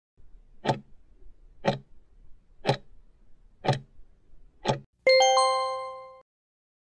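Countdown-timer sound effect: a clock ticking five times, once a second, then a bell-like chime that rings out and fades over about a second as the timer reaches zero and time is up.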